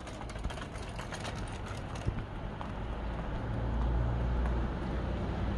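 Small kick scooter's wheels clicking as they roll over paving bricks, many sharp clicks in the first two seconds, over a steady low rumble that grows louder about halfway through.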